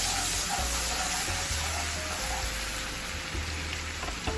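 Onion rings and freshly added garlic paste sizzling steadily in hot oil and butter in a kadai over a low flame.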